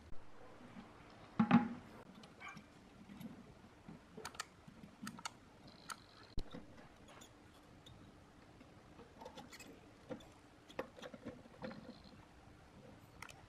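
Scattered small clicks and taps as an amplifier circuit board and its power transistors are handled and desoldered on a wooden table, with one louder knock about a second and a half in.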